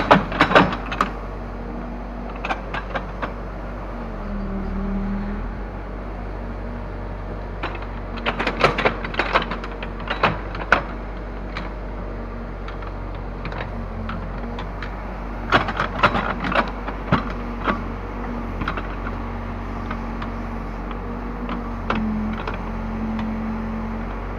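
Case 580L backhoe loader's diesel engine running steadily while the backhoe digs. Its note shifts briefly about four seconds in and again near the end. Scattered clusters of metallic clanks and rattles come from the machine at work.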